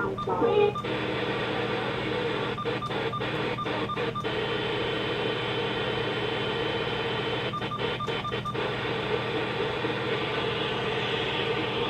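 Steady radio static: the hiss of a weak or untuned broadcast signal, with brief dropouts in two short clusters about three and eight seconds in.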